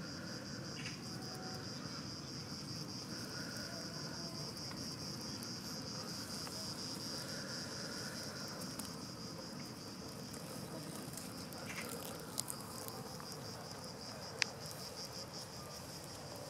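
Insects chirring in a steady, high, rapidly pulsing chorus, with a couple of brief sharp clicks in the second half.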